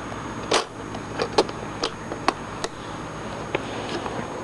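Small plastic clicks and taps, about seven spread irregularly, from handling the power-button cover of an Acer Aspire 5050 laptop while lining the button up under it.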